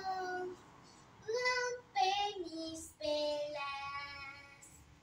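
A young girl singing unaccompanied, in short phrases of held notes with brief pauses between them; the last note, about three seconds in, is held long and fades out near the end.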